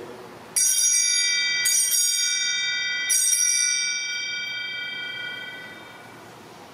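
Altar bell struck three times at the elevation of the host during the consecration, each strike ringing with a clear, high, shimmering tone that fades slowly.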